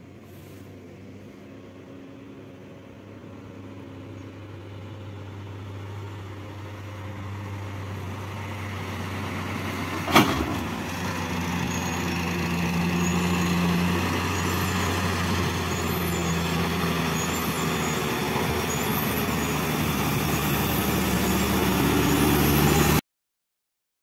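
Truck and car engines running and growing steadily louder as the vehicles come round a hairpin bend. About ten seconds in there is one sharp, loud bang from the car as its wheels drop off the tarmac edge onto the dirt shoulder.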